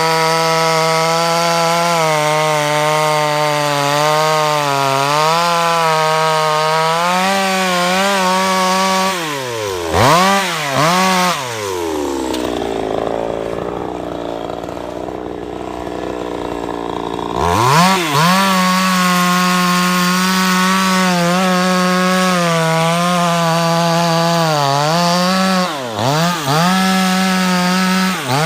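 Chainsaw cutting wood, its engine held at high revs. About ten seconds in the revs drop and it runs slower and quieter for about five seconds before being revved back up. Several quick throttle blips come near the end.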